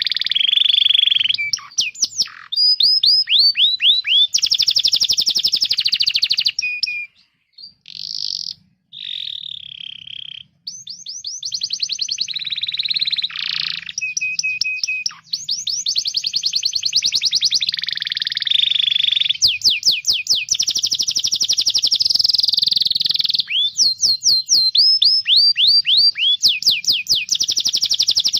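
Domestic canary singing a long, fast song of trills and rolls, with runs of quick downward-sweeping notes and a few short breaks.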